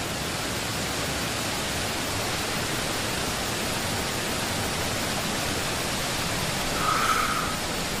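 Steady, even rushing noise, with a brief higher-pitched sound about seven seconds in.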